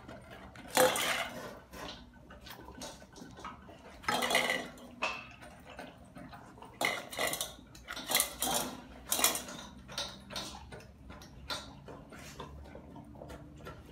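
Dogs eating dry kibble from stainless steel bowls: irregular clinks and clatters of kibble and teeth against the metal bowls, a few loud ones scattered among quieter rattling.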